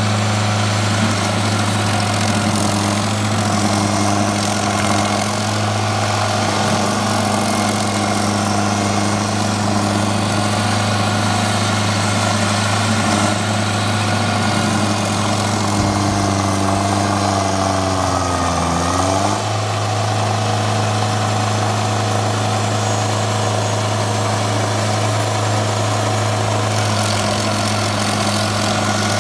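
Rayco RG45X stump grinder's 44 hp Kubota diesel engine running steadily while its cutter wheel grinds into a stump. About two-thirds of the way through, the engine note sags for a couple of seconds, dragged down by the cut, then snaps back up.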